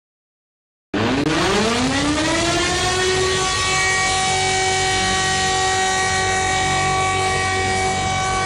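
Emergency-alert siren starting about a second in, winding up in pitch for about a second and a half, then holding a steady chord of several tones.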